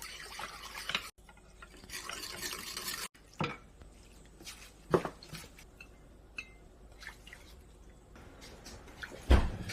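Water pouring into a pot in two spells during the first three seconds, then scattered clinks and knocks of kitchen utensils and pots, with a heavier knock near the end.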